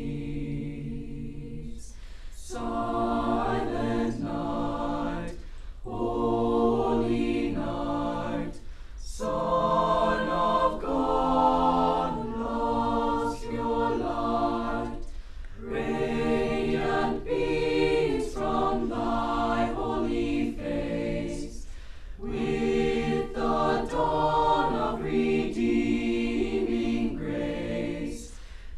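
A school choir singing in several voice parts, in phrases broken by short pauses every few seconds.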